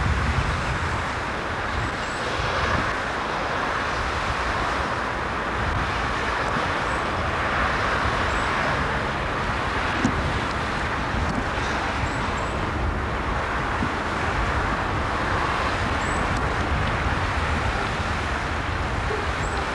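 Road traffic passing on a wet road: tyre hiss swelling and fading several times over a steady low rumble.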